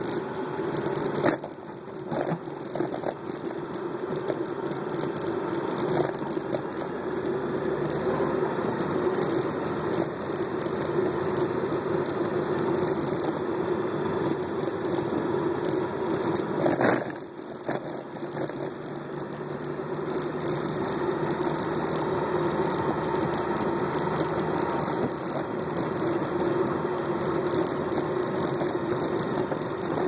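Steady engine and road noise heard from inside the cab of a car driving slowly. A couple of short knocks or rattles sound about a second in and again just past halfway.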